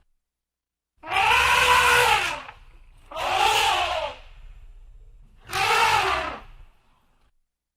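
Elephant trumpeting: three loud calls of about a second each, their pitch rising and then falling, with short silences between them.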